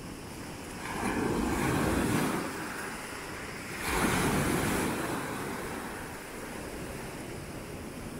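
Sea waves breaking and washing up a pebble beach, two surges about three seconds apart.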